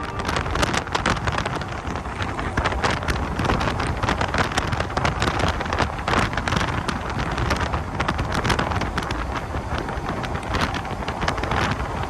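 Strong wind buffeting the microphone, a loud rushing noise broken by frequent sharp crackles.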